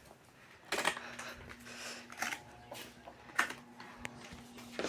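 Britânia electric fans being switched on at the lowest speed: three sharp switch clicks, the first about a second in, with a faint steady low motor hum starting after the first click.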